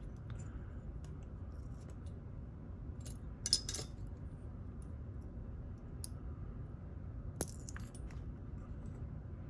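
Small metallic clicks and ticks of a pin-tumbler lock's core, pins and shim being handled during disassembly, over a steady low hum. The loudest is a short cluster of clicks about three and a half seconds in, with single clicks later on.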